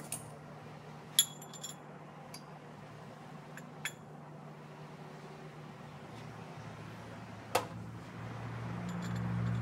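A ringing clink of ceramic cupware about a second in, then a few lighter clicks and one sharp tick, with a low machine hum building near the end.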